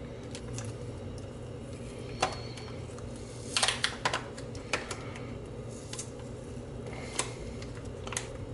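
Small plastic clicks and taps from hands working a wet label off a disposable camera's plastic body, coming irregularly, with a quick cluster about three and a half seconds in, over a steady low hum.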